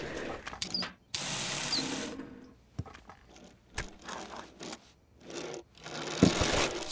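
Cartoon sound effects of a toy race car: a small whirring, ratcheting mechanism with light clicks and knocks, and a louder rattle starting near the end.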